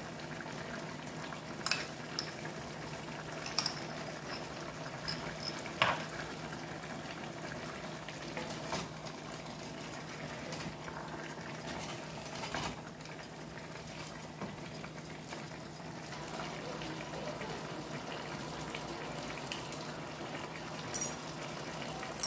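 Pots of food simmering on a stovetop, a steady bubbling hiss, with a few sharp clinks now and then.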